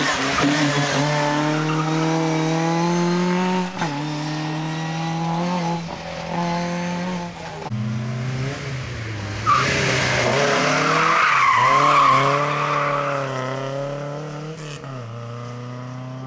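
Rally cars driven hard: the Fiat 124 Abarth Spider's engine climbs through the gears, its pitch dropping at each quick shift. About ten seconds in, a second car's tyres squeal through the bend for a few seconds, and its engine pulls away in lower tones.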